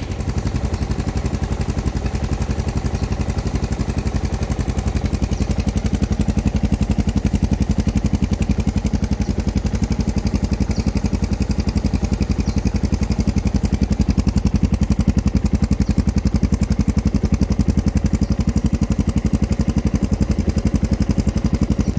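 Suzuki DR650's single-cylinder four-stroke engine idling steadily through a long stainless-steel FMF-style aftermarket muffler, a rapid, even train of exhaust pulses.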